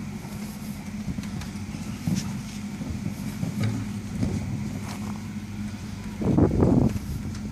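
A steady low hum under a rumbling wind noise on the microphone, with a louder gust about six seconds in.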